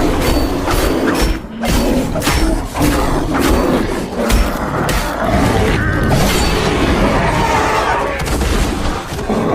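Polar bear sound-effect track: a dense low rumble broken by many sharp crashing impacts and booms, with some pitched, bending growl-like sounds in the middle.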